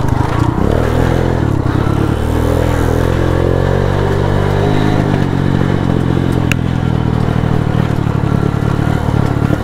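Motorcycle engine running under way, its pitch rising and falling as the throttle changes; one sharp click about six and a half seconds in.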